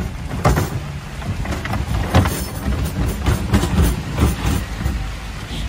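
Wooden café chairs and a wooden cabinet knocking and clattering as they are carried and handled, a run of irregular knocks over a steady low rumble.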